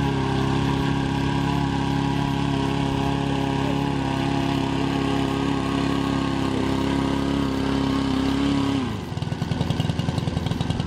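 Small petrol engine and air propeller of a Takakita radio-controlled airboat sprayer running at a steady speed, then dropping to a lumpy idle about nine seconds in. The boat won't pick up speed, which the operator puts down to a fuel mixture set a little too rich.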